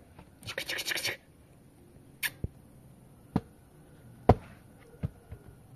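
Small handling noises of a nail polish bottle and brush: a short rapid clatter about half a second in, then a few sharp single clicks, the loudest a little past four seconds.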